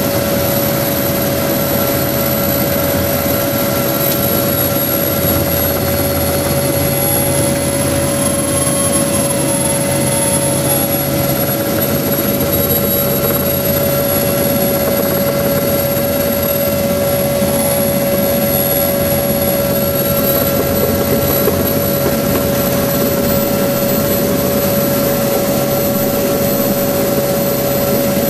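Helicopter in flight heard from inside its cabin: a loud, steady din of turbine engines and rotors, with a constant high whine running through it.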